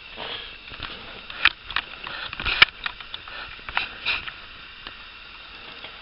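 Handling noise from refitting a car door's window glass: a string of irregular clicks and knocks with brief scraping between them, as the glass and door parts are worked into place. The loudest knocks fall about a second and a half and two and a half seconds in, and it settles down near the end.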